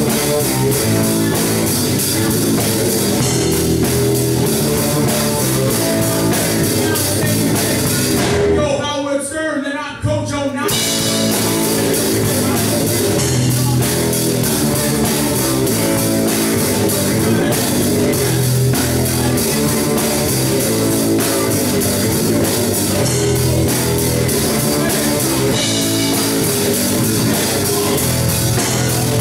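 Live rock band playing, with drum kit, electric guitar and bass. About nine seconds in, the cymbals and high end drop out for roughly two seconds, then the full band comes back in.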